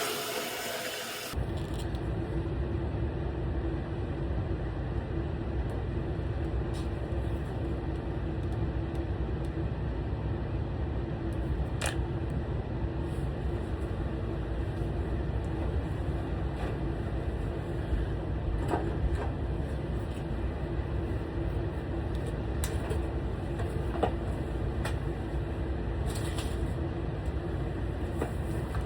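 Water rushing steadily out of an electric water heater's drain valve through a hose, a continuous low rumble as the tank is flushed of scale. The sound changes abruptly about a second in, then holds steady.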